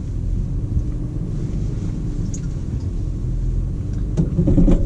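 Toyota 4Runner's 4.0-litre V6 and drivetrain rumbling steadily from inside the cabin as Crawl Control creeps the SUV up a slippery hill in four-low, metering throttle and wheel slip by itself. A few short knocks come near the end.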